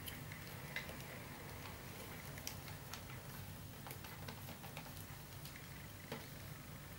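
Faint, scattered light ticks and taps of rolled paper tubes being woven by hand around a glass bottle, over a low steady hum.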